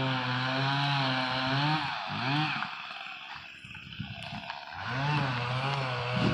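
Chainsaw running at steady throttle, easing off about two seconds in and dropping low with a few knocks, then speeding back up near the five-second mark.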